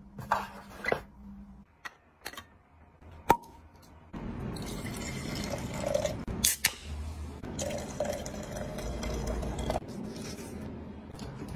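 A few sharp clicks and knocks, then from about four seconds in a steady stream of red wine poured into a large wine glass, easing off near the end.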